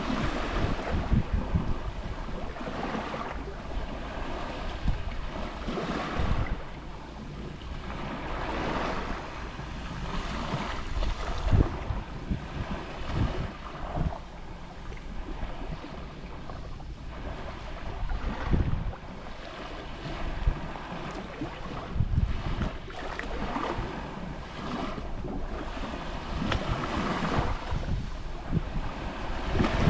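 Small waves lapping and washing on the shore, swelling and ebbing every few seconds, with wind buffeting the microphone as a low rumble.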